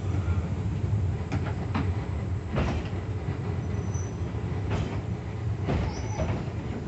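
Funicular cable car running downhill on its rails, heard from inside the car: a steady low rumble with several sharp wheel clacks and two brief high squeaks.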